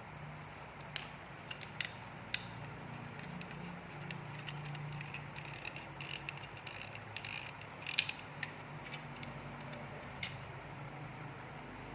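Scattered small clicks and light clattering of tools and small parts being handled on a workbench, over a faint low steady hum.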